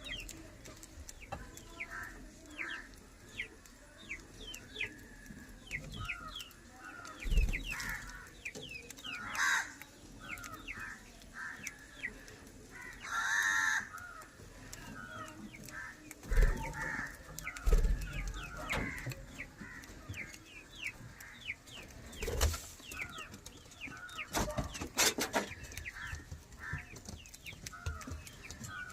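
Lovebirds chattering with many quick, high, falling chirps, one louder drawn-out squawk about halfway through. There are a few dull knocks and bumps along the way.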